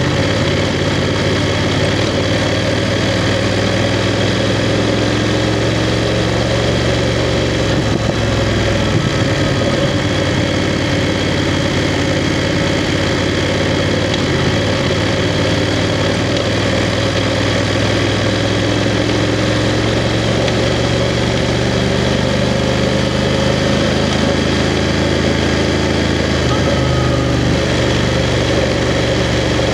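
BMW F 750 GS parallel-twin engine running steadily while riding, its pitch shifting at about nine seconds in and again near the end as engine speed changes.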